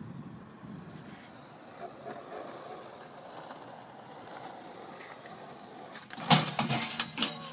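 Skateboard wheels rolling on asphalt, a faint steady rumble, then a short burst of loud clattering knocks a little after six seconds in as the rider jumps the gate arm and the board comes down.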